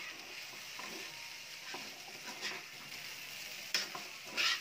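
Crab-paste fried rice sizzling in a pan while a spatula stirs and scrapes it, several strokes over the steady hiss, the loudest two near the end.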